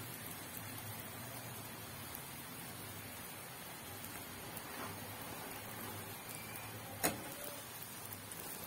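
Omelette frying in oil in a non-stick pan, a faint steady sizzle, with a single sharp click about seven seconds in.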